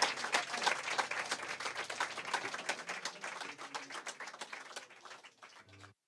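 A small audience clapping, the applause thinning out and growing steadily fainter before cutting off abruptly just before the end.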